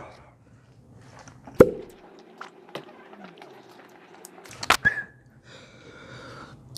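A few sharp knocks, the loudest about a second and a half in and a cluster just before five seconds, then a man trying to whistle: mostly breath with a faint wavering tone.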